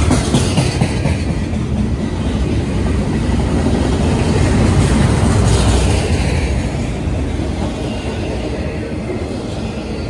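Double-stack intermodal well cars of a Norfolk Southern freight train rolling past close by: a steady, loud rumble of steel wheels on rail with clattering from the cars.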